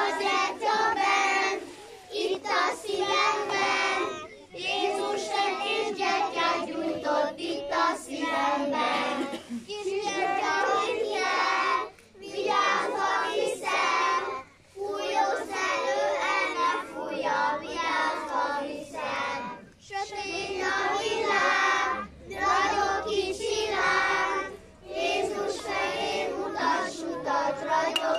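A group of young children singing a song together, in phrases a couple of seconds long with short breaks for breath between them.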